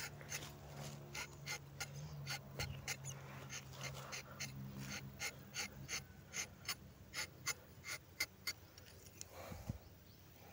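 Rubber tapping knife shaving a thin strip of bark along the tapping cut on a rubber tree, a quick run of light crisp clicks about two to three a second that stops about nine seconds in.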